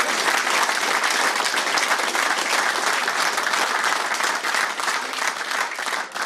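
Live audience applauding: steady, dense clapping that starts to die down near the end.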